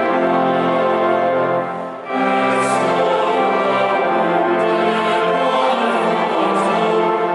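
Church choir singing a hymn in chords with organ accompaniment, with a short break between phrases just under two seconds in.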